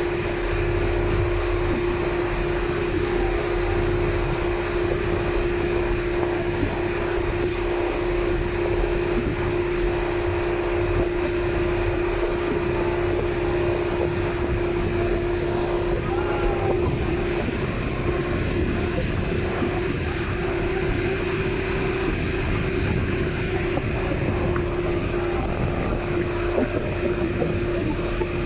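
Engine of a motorised outrigger boat running steadily under way: a constant drone with one steady humming pitch, over a rush of wind and water.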